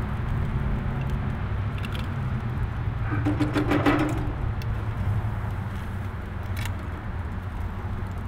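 Wire grill basket clinking and rattling against the grill's metal grate as it is taken hold of and lifted, loudest about three to four seconds in, with a few single clicks, over a steady low hum.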